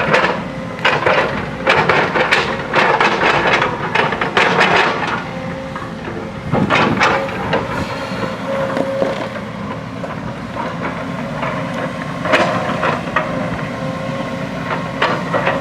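JCB backhoe loader's diesel engine running steadily under load, with repeated scraping, crunching surges of the bucket digging into earth and rock. The surges come close together for the first five seconds, then only now and then.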